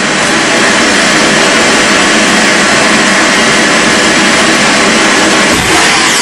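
Loud, steady rushing noise that cuts in abruptly, like a burst of static.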